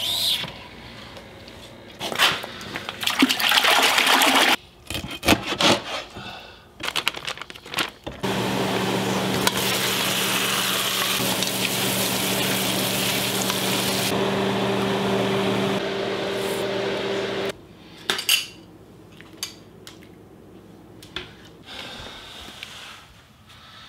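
Squirrel meat sizzling in a steel pot on an electric stove: a steady hiss lasting about nine seconds, with a fork clinking against the pot. Before it comes a couple of seconds of loud rushing noise and some clattering, and after it a few scattered light knocks.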